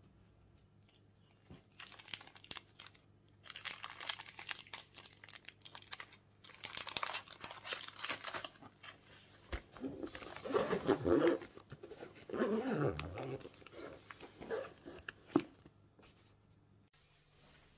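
Rustling and crinkling of wrapped food, drink cans and a plastic water bottle being packed by hand into a soft insulated lunch bag, with irregular handling noise, then the bag being zipped shut. The handling noise is loudest around the middle.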